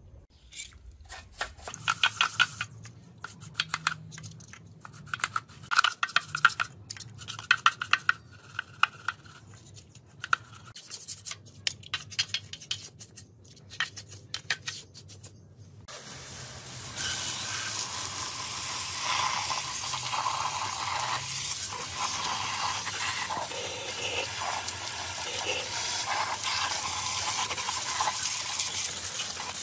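Quick, uneven brushing and scrubbing strokes on an engine casing through the first half. About halfway in, a steady hiss starts: a pressure-washer water jet spraying the Yanmar S13 CE engine block, the loudest sound here.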